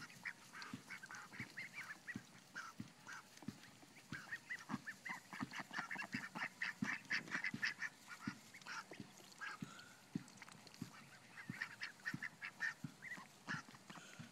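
A flock of young domestic ducks calling, a busy, overlapping run of short high-pitched peeps and calls, several a second, that never lets up.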